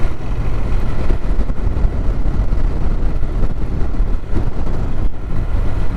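Honda NC750X motorcycle under way at road speed: a steady, loud low rumble of wind rush on the helmet-mounted microphone mixed with the parallel-twin engine and tyre noise.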